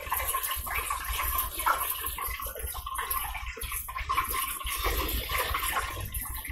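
Chicken frying in hot oil inside a lidded electric countertop deep fryer: a steady sizzle with fine crackling.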